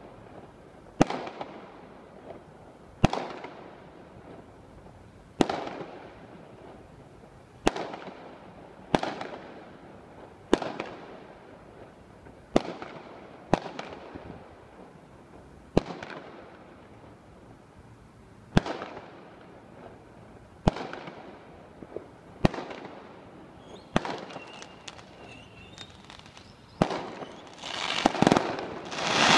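Distant aerial fireworks bursting: about fifteen sharp bangs, one every one to three seconds, each dying away in a rolling echo. Near the end the bangs come closer together with a burst of crackling.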